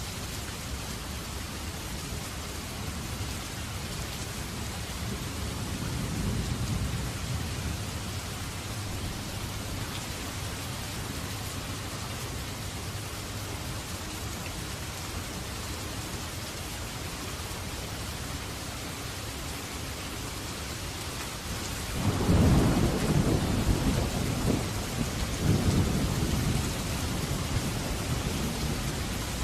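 Steady rain falling, with a soft low roll of thunder about six seconds in. About 22 seconds in a louder thunderclap rumbles in suddenly and rolls on for several seconds, swelling again near the end.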